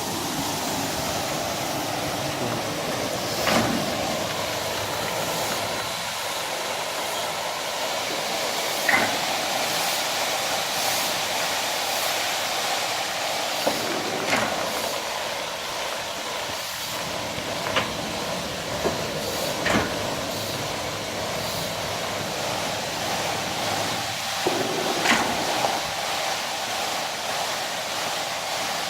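Industrial carpet-washing machinery running with a steady hissing, rushing noise, broken now and then by short sharp clanks.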